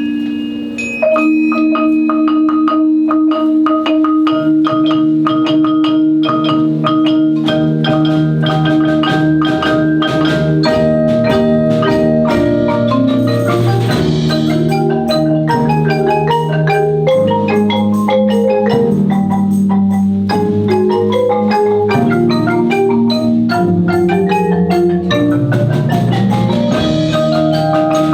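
Percussion ensemble playing mallet instruments: quick struck marimba and glockenspiel notes over held low tones, the full ensemble coming in together about a second in.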